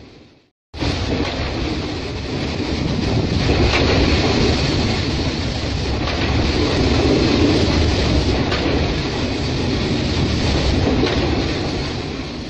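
Freight train of loaded open coal wagons rolling past with a steady clatter of wheels on the rails. The sound cuts out briefly right at the start and comes back abruptly just under a second in, then fades near the end.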